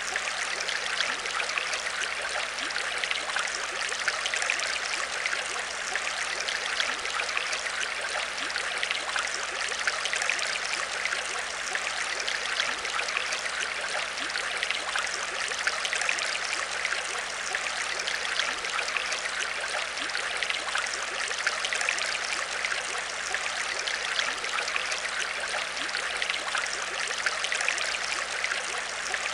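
Aquarium water trickling and splashing steadily, with a faint low steady hum underneath.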